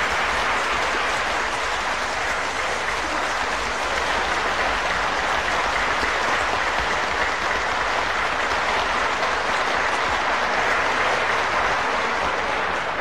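Studio audience applauding steadily, starting to die down near the end.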